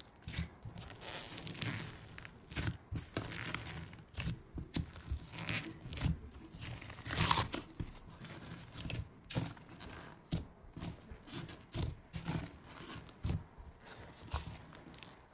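Thick fluffy slime topped with foam beads being pressed and kneaded by hand: irregular crunching, crackling and squishing, with a louder crackle about seven seconds in.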